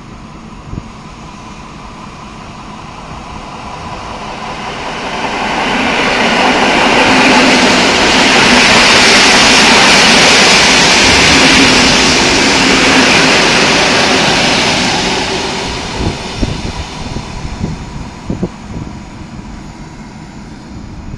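A regional electric multiple unit train passes on the far track, its rushing rumble of wheels on rails growing louder for several seconds, loudest around the middle, then fading away. Near the end only low thumps of wind on the microphone remain.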